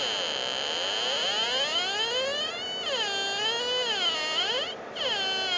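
Buzzy electronic tone from a homemade breadboard synthesizer, a Schmitt-trigger NAND gate oscillator driving a 386 amplifier and speaker, its pitch swooping up and down in repeated glides and briefly dropping out near the end. The tone carries a lot of noise, the circuit not yet having a filtering capacitor.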